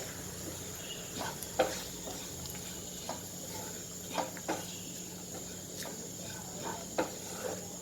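A spoon stirring spice powders as they roast in coconut oil in a pan: a few scattered scrapes and taps over a steady high-pitched hiss.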